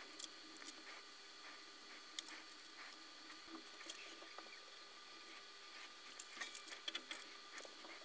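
Faint scattered clicks and light scratching from handling fine headphone wires and soldering a 3.5 mm jack held in a helping-hand clip. The clicks come in two flurries, about two seconds in and again around six to seven seconds in.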